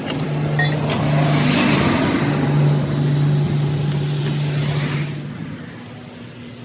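A motor vehicle engine running with a steady low hum, its noise swelling over the first couple of seconds and fading away after about five seconds.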